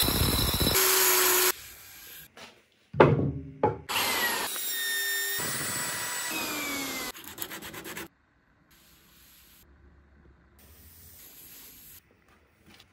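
Power tools working a wooden chopping board in quick cuts: an angle grinder with a sanding disc rubbing across the wood, then short bursts, then a plunge router running steadily for a couple of seconds. The tools stop about eight seconds in, leaving only faint sound.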